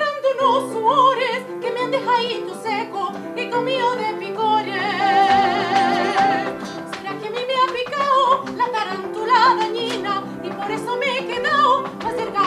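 A woman singing in an operatic style with strong vibrato, accompanied by a grand piano; about five seconds in she holds one long high note.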